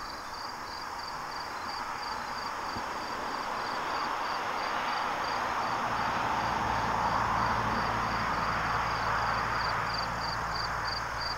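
Evening insects chirping in a steady, even rhythm of a few high pulses a second, over a continuous high trill. A broad rushing noise swells to its loudest about halfway through and then fades.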